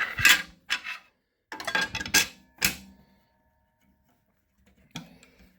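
Clicks, knocks and short metallic scrapes from handling a table saw's throat plate and working its lock, bunched in the first three seconds with a faint metallic ring after them, then a last small click near the end.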